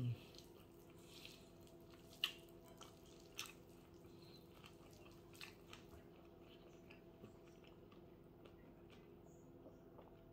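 Faint eating sounds: scattered soft, wet clicks and squishes of a mouth chewing rice and beans and of fingers working the food, the loudest about two seconds in. A faint steady hum runs underneath.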